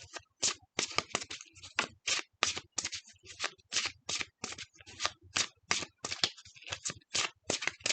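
A deck of tarot cards being shuffled by hand: a steady run of short papery slaps, about three a second.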